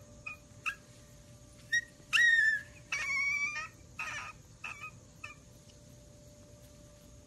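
Husky puppies whimpering and squeaking: a string of short, high-pitched cries, the loudest a falling whine about two seconds in, dying away after about five seconds.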